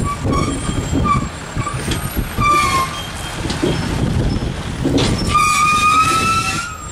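A vehicle horn sounding several short toots, then one long blast near the end, over the low rumble of engines in traffic.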